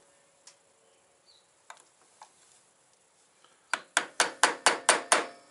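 Hammer tapping the end of a flathead screwdriver to bend back the folded-over tab of the soft steel lock washer behind a motorcycle's front sprocket nut. A pause with a few faint clicks, then about two-thirds of the way in a quick run of about seven sharp taps, four or five a second.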